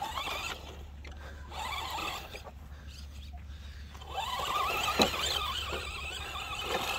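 Electric motor of a Carson Mega Duster 1:10 RC monster truck whining as it drives over sand, rising in pitch about four seconds in as it speeds up, with a sharp knock about a second later.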